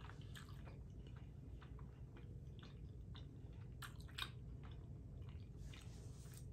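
Faint close-up chewing of a mouthful of soft Flamin' Hot Cheetos mac and cheese: small wet mouth clicks and smacks, with a couple of louder ones about four seconds in and a soft hiss of breath near the end.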